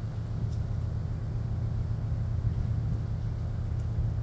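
Steady low rumble of running machinery, unchanging throughout, with a few faint ticks near the start and near the end.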